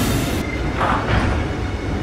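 Rhaetian Railway Ge 6/6 II electric locomotive moving slowly, a steady low rumble. A brief high hiss cuts off just after the start, and a short rasping noise comes about a second in.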